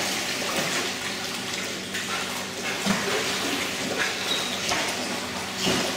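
Water splashing and churning in a dog hydrotherapy pool as a dog paddles through it, with small irregular splashes over a steady wash of moving water.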